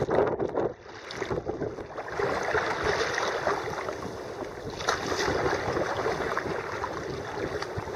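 Sea kayak being paddled: irregular splashing of paddle strokes and water sloshing against the hull.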